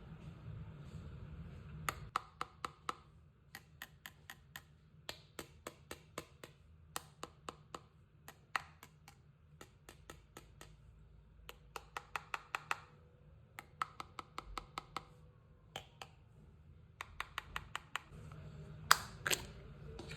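Purple slime being poked and pressed, giving off sharp clicking pops in quick runs of several a second with short pauses between, and two louder pops near the end.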